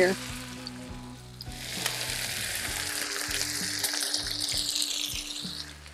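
Ground-beef burgers sizzling on a Blackstone flat-top griddle, a steady frying hiss that swells about a second and a half in and dies down near the end.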